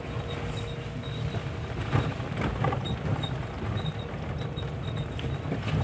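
A vehicle driving over a rough road, heard from inside: a steady low rumble of engine and road noise, with a few short knocks and rattles from bumps around two seconds in.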